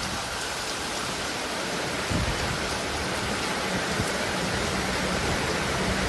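Heavy cyclone rain pouring down in a steady hiss, with a gust of wind rumbling on the microphone about two seconds in.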